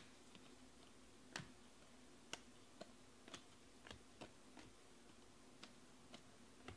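Faint light clicks of stiff Panini Prizm baseball cards being flipped one at a time through a hand-held stack, about ten irregularly spaced clicks.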